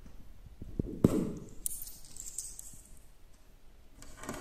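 Handling noise: a single soft thump about a second in, then faint rustling and a few light clicks.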